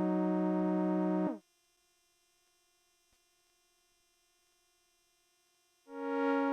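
Behringer Phara-O Mini analogue synthesizer, dry: a held note rich in harmonics cuts off about a second in with a slight downward bend in pitch. A faint thin tone lingers in near silence, then a new, higher note starts near the end.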